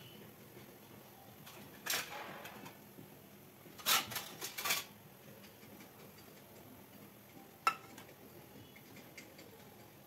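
Medu vadas deep-frying in hot oil in a pan: a faint steady sizzle, broken by a few sharp clicks, the loudest cluster about four seconds in and a single one near eight seconds.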